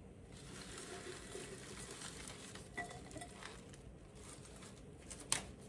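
Rose stems and leaves rustling as the bouquet is lifted out of a round glass vase of water, with faint patter. A sharp knock comes near the end.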